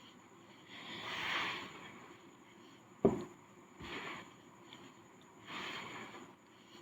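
Dry crumbled sand being handled, giving several short gritty rustles. A sharp knock about three seconds in is the loudest sound.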